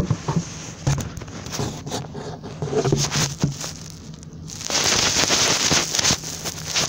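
Phone being jostled and rubbed against things: scattered knocks, clicks and scraping, then a loud rustling hiss of something rubbing over the microphone for about a second and a half, starting about five seconds in.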